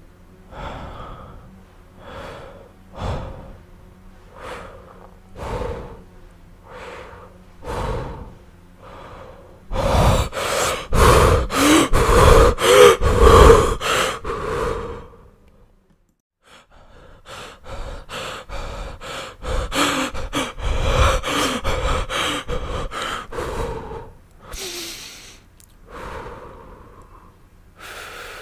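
A sick man's laboured breathing. It starts as separate breaths about once a second, then turns to fast, loud gasping that breaks off for about a second, starts again, and eases back to slower single breaths near the end.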